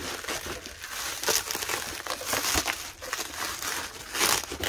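Bubble wrap and plastic wrapping crinkling and rustling as a packed item is unwrapped by hand, a run of irregular crackles.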